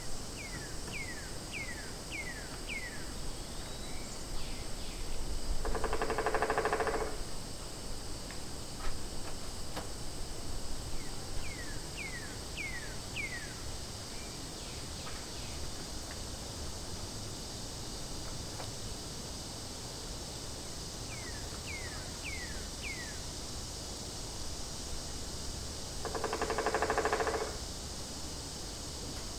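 A steady high-pitched insect chorus, with a bird three times giving a quick run of four or five falling whistled notes. Twice, a louder buzzy call lasting about a second stands out over it.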